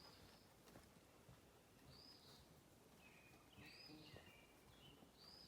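Near silence, with a bird's short, high call repeated faintly about every one and a half to two seconds.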